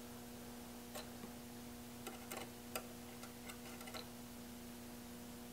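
Light, irregular clicks of meter probe tips touching terminals on a powered vintage tube radio chassis, about half a dozen over a few seconds, over a faint steady electrical hum.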